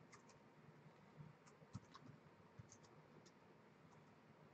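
Faint, irregular clicks of typing on a computer keyboard, a few keystrokes at a time, over near-silent room tone.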